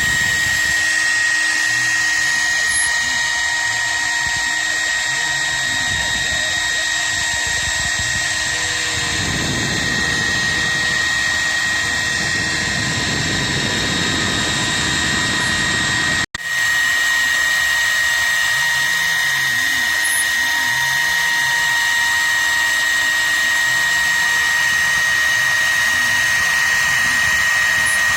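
CNC router spindle running with a steady high whine as it machines wood, with the axis motors humming and rising and falling in pitch underneath as the head moves. The sound breaks off for an instant about two-thirds of the way through.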